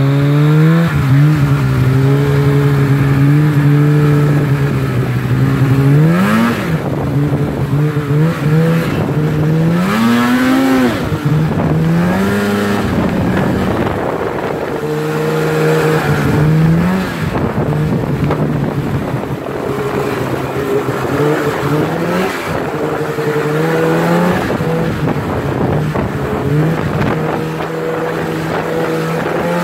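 Snowmobile engine running while riding, mostly holding a steady pitch but rising and falling several times as the throttle is opened and eased off.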